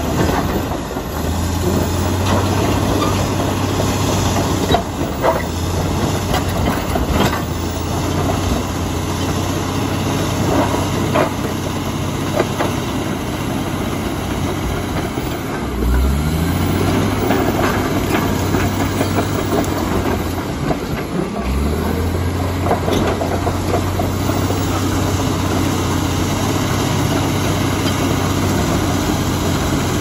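Komatsu D85EX crawler dozer's six-cylinder diesel running steadily under load as it pushes rock and soil, with clanking steel tracks and scattered knocks of rock against the blade. The engine note dips and climbs back up twice, about halfway and two-thirds through.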